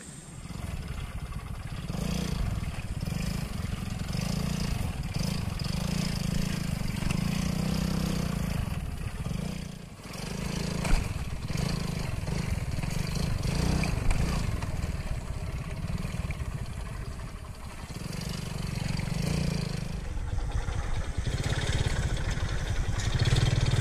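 Motorcycle engine running at low speed on a rough dirt track, the throttle rising and easing off, with a brief drop about ten seconds in and a sharp knock a second later.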